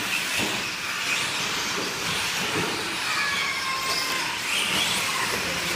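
Electric 1/10-scale 4x4 short course RC trucks running on a dirt track: brushless motors whining and rising and falling in pitch over a steady hiss of drivetrain and tyres, the whine clearest in the second half.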